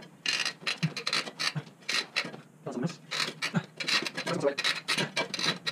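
Steel shovel rocked back and forth with its blade on a concrete floor, giving many short, irregular scraping and rubbing strokes with an occasional creak, as the wooden handle is worked loose from the blade's socket once its rivet has been drilled out.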